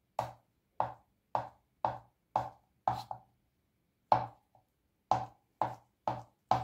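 Kitchen knife slicing hard-boiled eggs on a wooden cutting board, each cut ending in a sharp tap of the blade on the board, about two a second, with a pause of about a second just after halfway.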